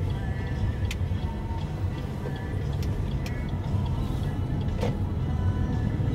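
Steady low road and engine rumble of a car being driven, with a few sharp clicks at uneven intervals.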